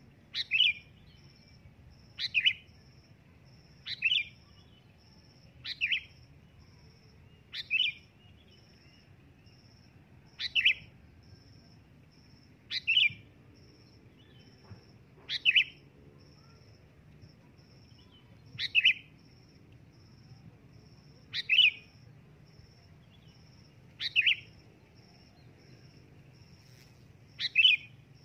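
Sooty-headed bulbul (kutilang) calling loudly: twelve short, quick calls, each sweeping down in pitch, repeated every two to three seconds, the kind of call used to lure other bulbuls.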